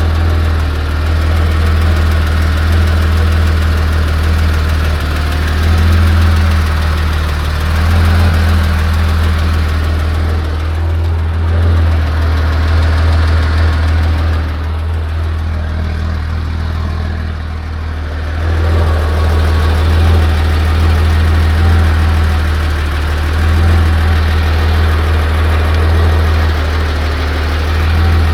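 1986 Porsche 911 Carrera 3.2's air-cooled flat-six idling hot, at operating temperature. It runs steadily with small swells in level and eases slightly for a few seconds in the middle.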